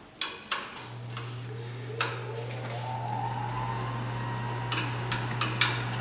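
Sharp metallic clinks of tools and parts being handled in a truck's engine bay, a few scattered and a quick cluster near the end. Under them a machine starts about a second in, giving a steady low hum and a faint whine that rises in pitch over the next couple of seconds.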